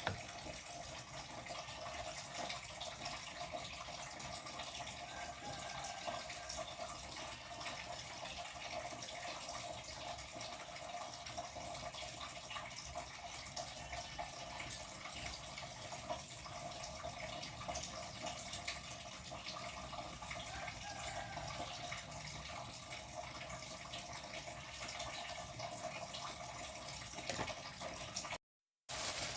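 Water running steadily from a kitchen tap into a sink, with a brief silent gap near the end.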